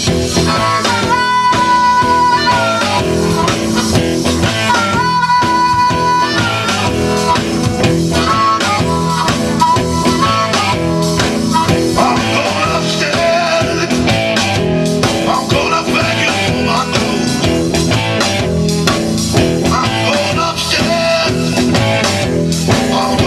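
Live rock band playing an instrumental passage with drum kit, bass and guitar. A lead instrument holds a long high note about a second in and again about five seconds in, over a steady beat.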